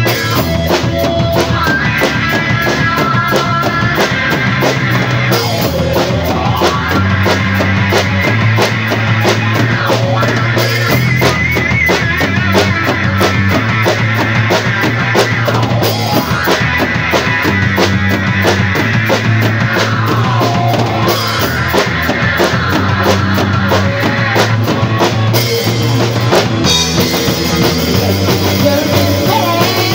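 Rock band playing an improvised instrumental jam: drum kit with busy cymbal strokes, electric bass holding low notes, and electric guitar playing long, wavering notes.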